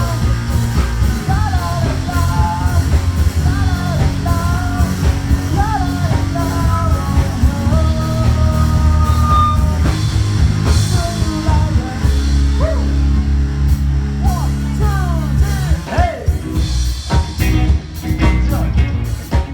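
Rock band music: drum kit, bass and electric guitar under a wavering lead melody. After about ten seconds the melody gives way to sliding notes, and scattered drum hits come in near the end.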